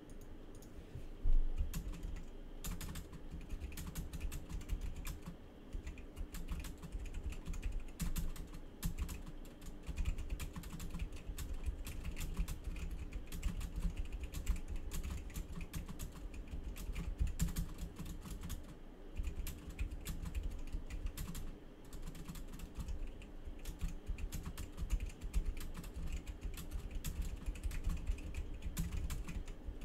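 Typing on a computer keyboard: a quick, irregular run of key clicks, with one louder knock about a second in.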